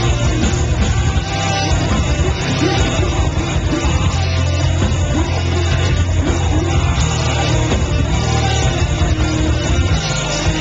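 A heavy metal band playing live and loud, with distorted electric guitars, bass and drums, and vocals over the top.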